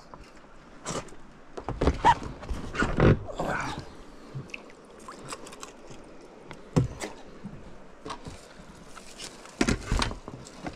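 Scattered knocks, bumps and short splashy noises from handling gear in a small fishing boat, at irregular intervals, loudest about two to three seconds in, at about seven seconds and near the end.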